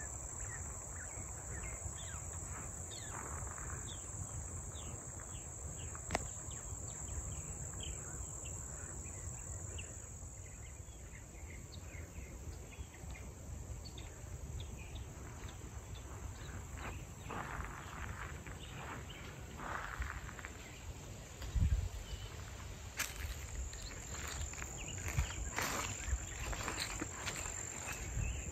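A steady, high-pitched chorus of field insects trilling, with scattered short chirps over a low rumble. Several louder knocks come in near the end.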